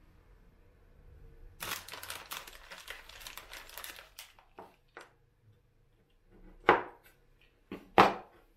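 About two and a half seconds of crinkly rustling, then a few light taps. Near the end come two sharp chops of a chef's knife on a wooden cutting board, about a second apart.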